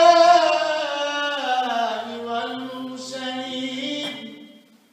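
A man chanting a drawn-out, melismatic line of Arabic salawat, a blessing on the Prophet Muhammad. The pitch slides down over the first two seconds, then holds lower and fades out near the end.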